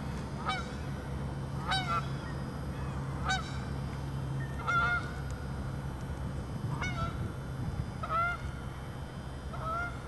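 A pair of Canada geese honking in flight, about seven single honks spaced a second or two apart, over a steady low hum.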